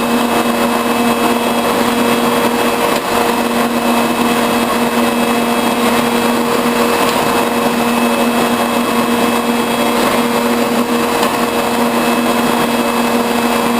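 Metal shaper running on its own through its cutting strokes, with the lathe also running. Together they make a steady machine hum with a constant low drone and no pauses.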